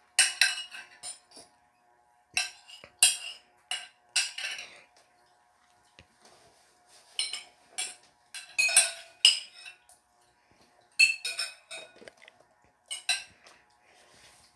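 Metal spoon clinking and scraping against a ceramic soup bowl, in irregular clusters of quick clinks with short pauses between.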